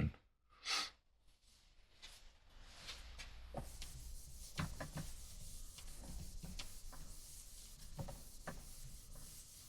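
Faint scattered clicks and light knocks over low room noise, starting after a second or two of near silence.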